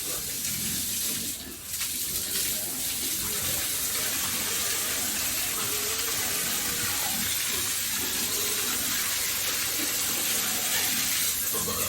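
Water running or spraying steadily, an even hiss, dipping briefly about a second and a half in.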